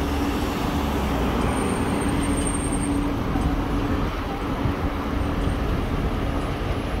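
Street traffic noise with a Solaris Trollino 18 articulated trolleybus driving by: steady tyre and road noise under a steady hum that ends about three seconds in, with a thin high whine briefly around two seconds in.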